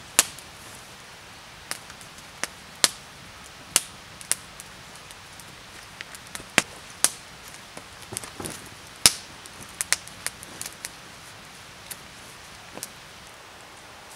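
Wood fire crackling: irregular sharp pops and snaps at uneven intervals, some much louder than others, the loudest about nine seconds in.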